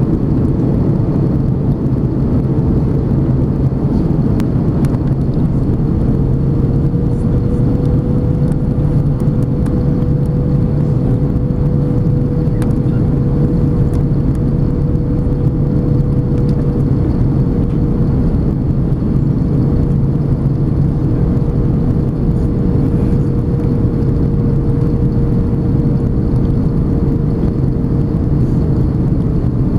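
Airbus A330 cabin noise on the descent to landing, heard beside the wing: a steady jet-engine drone and rush of air, with a steady whine that rises slightly a few seconds in and then holds.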